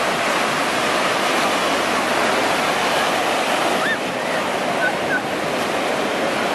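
Ocean surf on a sandy beach: a steady, unbroken rush of breaking waves.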